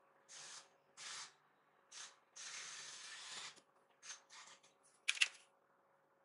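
Handling noise from hands moving a smartphone and brushing the tabletop: several short rustling hisses, one lasting about a second, then two sharp clicks a little after five seconds in.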